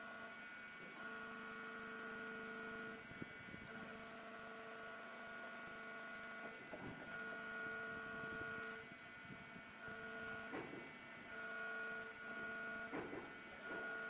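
Faint hum of a hydraulic rock breaker's power unit, a steady pitched drone that cuts in and out every second or two while the boom is worked, with a few brief rising whines.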